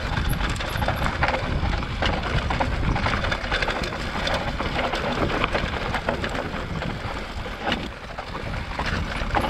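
Mountain bike ridden fast down a rough dirt trail: wind rumbling on the microphone over the steady noise of the tyres on the ground, with the bike rattling in many small clicks and knocks.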